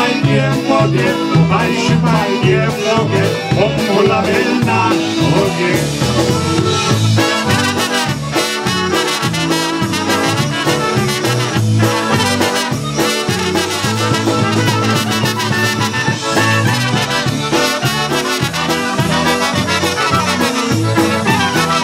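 Chicago-style polka band playing live, with two trumpets playing the melody together over a bouncing bass beat.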